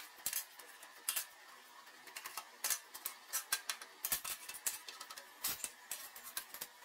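Irregular light metallic clicks and taps, a few a second, from steel parts being handled and tapped in metalwork.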